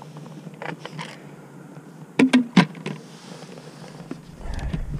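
Two sharp knocks about half a second apart as the plastic bottle and pump head of a hand-pump foam sprayer are handled, amid soft handling noise, with a low rumble coming in near the end.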